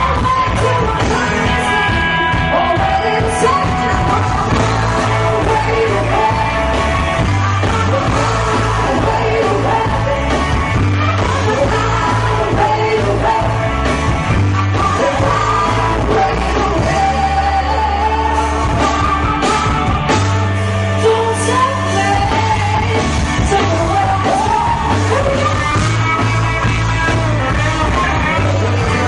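Live rock band playing with a singer: steady bass line, guitar and vocals.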